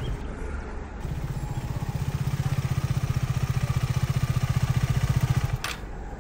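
Hero Splendor motorcycle's single-cylinder four-stroke engine running with a low, steady pulsing beat that grows louder. It cuts off about five and a half seconds in and is followed by a single sharp click.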